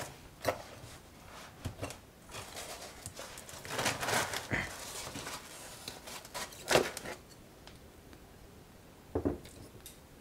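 Handling sounds as a small racing quadcopter is lifted out of a cut-foam packing tray: foam rubbing and rustling with scattered taps and knocks, the sharpest about 7 s in and another about 9 s in.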